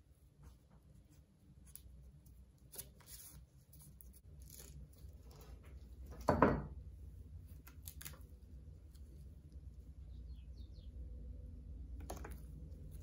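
Quiet hand-work sounds of paper and a small glue brush: light scrapes and taps as contact adhesive is brushed onto a paper grinding-wheel blotter. About six seconds in comes one louder, brief handling sound as the paper disc is lifted, all over a low steady hum.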